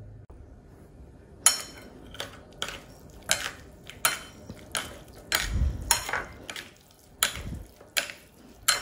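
Wooden chopsticks and a metal spoon tossing sauced instant noodles on a ceramic plate. The utensils clink sharply against the plate about ten times, roughly every two-thirds of a second, starting about a second and a half in.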